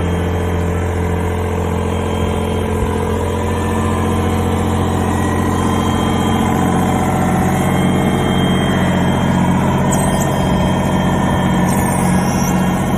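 Diesel engine of a Yanmar VIO20-1 mini excavator running steadily at idle, slightly louder from about four seconds in.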